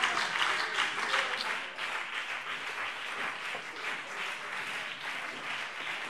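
An audience applauding, heavier for the first couple of seconds and then thinning out.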